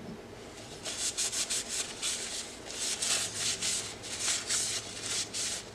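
A cloth rag wiping a flat steel bar in quick, repeated back-and-forth strokes. The bar is being cleaned with acetone to remove dust and oil before it is stacked for forge welding.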